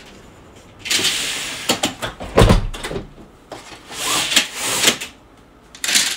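A room window being pulled shut: several scraping, sliding stretches with a heavy thud about two and a half seconds in as it meets the frame, and a last short scrape near the end.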